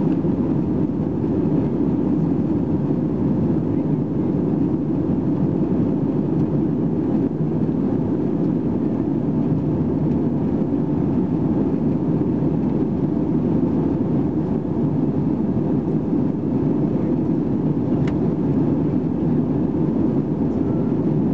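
Steady cabin noise of an Airbus A320-214 in flight, heard from a window seat beside the wing: the even drone of its CFM56 turbofan engines blended with the rush of air over the fuselage.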